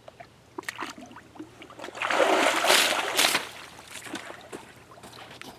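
Muddy water splashing and sloshing, with a few small splashes and drips, then a heavier splashing burst from about two to three and a half seconds in that dies away.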